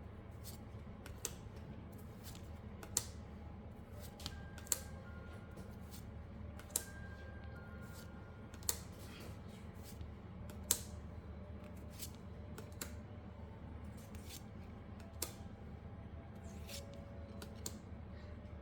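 Pokémon trading cards being flipped through one by one, each card giving a sharp click every second or two over a low steady hum.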